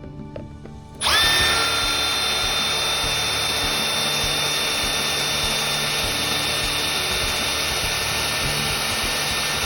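Power drill boring a 1/2-inch hole through a PVC post. It starts about a second in, spins up quickly, then runs steadily for about eight seconds.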